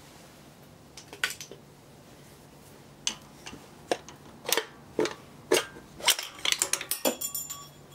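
A steel bar clinking and knocking against the crankshaft and block of a stripped Daewoo Lanos engine. The sharp metal clicks come scattered at first and crowd together from about six to seven and a half seconds in, some with a short ring.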